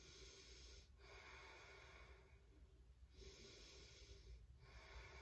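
Faint, slow breathing in and out, each breath lasting one to two seconds.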